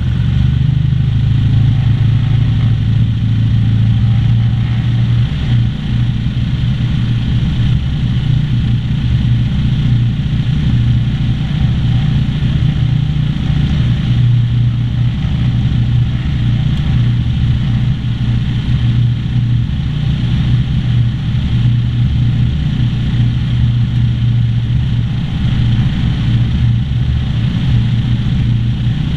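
Cessna 152's four-cylinder Lycoming O-235 engine and propeller running steadily, heard from inside the cockpit.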